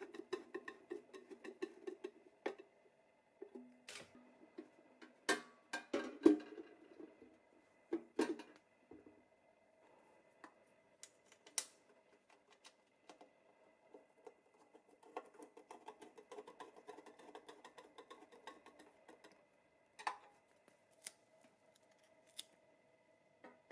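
Small metal parts being handled and fitted: a rapid rasping clatter at the start, then scattered sharp clicks and light taps, the loudest about six seconds in.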